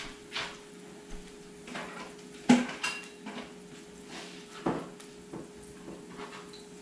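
Dishes and cutlery clinking and knocking on a kitchen counter: a few irregular sharp knocks, the loudest about two and a half seconds in, over a faint steady hum.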